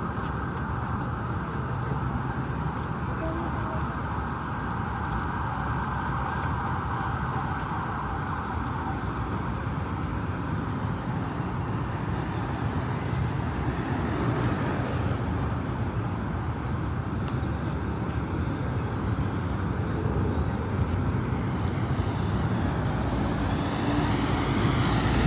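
City street traffic: a steady wash of road noise, with vehicles passing close by about halfway through and again near the end.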